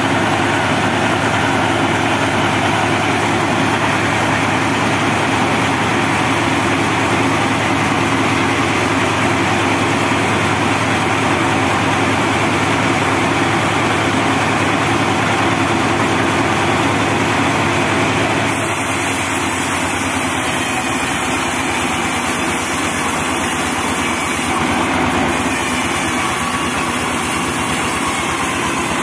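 Diesel engine driving a homemade band sawmill, running steadily while no log is being cut; its tone shifts slightly about two-thirds of the way through.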